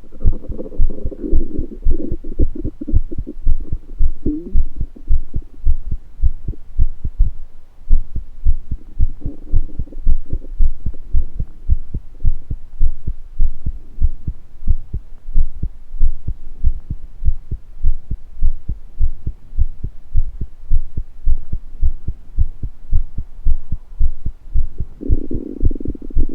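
A person's heartbeat in a steady, even rhythm of low thumps. Stomach gurgles rise over it in the first few seconds, again around nine to ten seconds in, and near the end.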